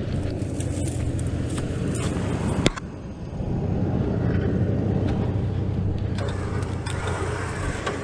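A Toyota Land Cruiser's bullbar winch runs steadily under load as it hauls a bogged vehicle on its cable, over the low drone of the idling engine. A sharp click about two and a half seconds in is followed by a brief drop, and then the winch carries on pulling.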